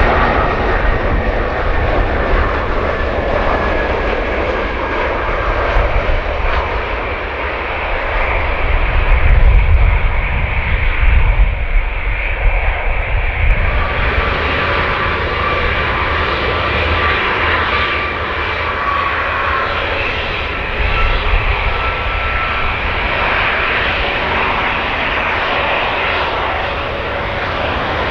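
Jet airliner's engines running loud at close range: a steady rumble with high engine whine tones that slowly fall in pitch.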